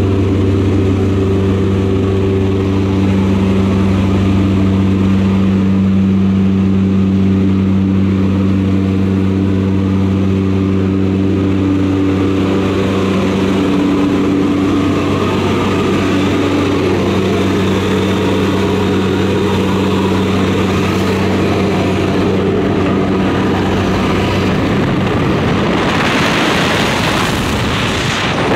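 Loud, steady drone of a propeller aircraft's engines heard inside the cabin. Near the end, a rushing wind noise grows stronger at the open jump door.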